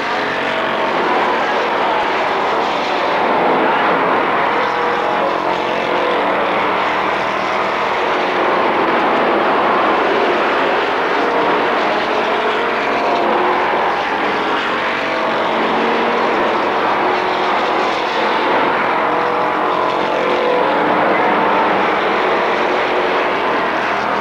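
Several stock-car racing engines running at full throttle together as the pack races around the oval, a loud, dense, steady drone of overlapping engine notes that swells and eases a little as cars pass.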